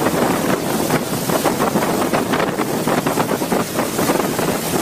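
Steady rushing noise of a fast-flowing flooded river, with wind buffeting the microphone.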